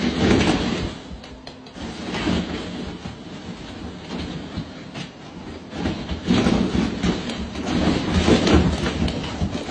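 Many hollow plastic ball-pit balls clattering and rattling as a golden retriever digs and dives through a pool full of them. The rattle is loudest in the first second and again through the second half.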